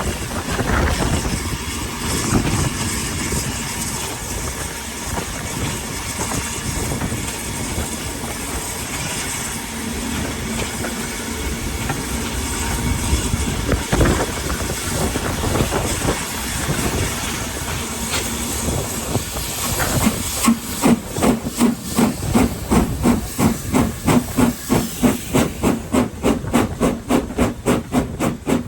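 BR Standard Class 4 steam locomotive 75069 hissing steam, then, about 20 seconds in, its exhaust starts beating out a strong, even chuff that quickens from about two to about three beats a second as the engine picks up speed.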